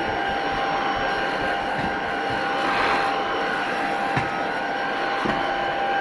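Tocmoc T230 cordless stick vacuum running steadily over a hard floor, a pretty quiet motor whine over a rush of air, with a few small clicks a little past the middle.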